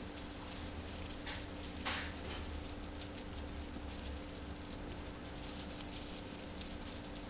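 A Siberian chipmunk rustling and scratching about in dry hay bedding: faint scattered crackles, with two louder rustles a little under two seconds in, over a steady low hum.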